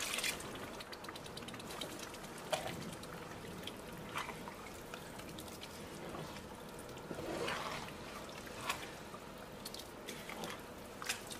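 Meat stock poured briefly into a pan of jollof rice, then a spatula stirring through the wet rice and tomato sauce. A few short, sharper sounds come through the stirring.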